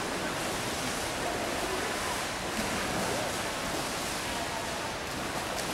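Swimmers splashing through the water at racing pace in an indoor pool: a steady wash of water noise, with faint voices behind it.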